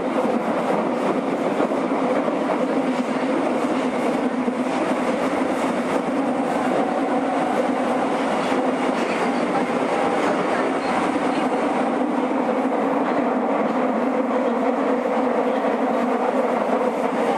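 Nagoya Municipal Subway 2000 series train, retrofitted with IGBT inverter control, running at a steady speed on the underground Meijo Line, heard inside the car: steady wheel-and-rail running noise with a light clatter and no rise or fall in pitch.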